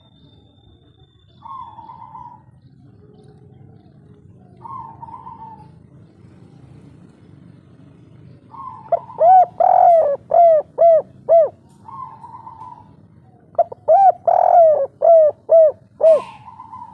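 Spotted dove cooing: a few soft coos, then two loud runs of short, quickly repeated coo notes, the first about halfway through and the second near the end.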